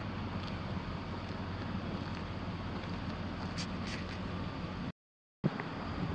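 A truck's 8.1-litre V8 gas engine idling steadily, with wind on the microphone. The sound cuts off to silence for about half a second near the end.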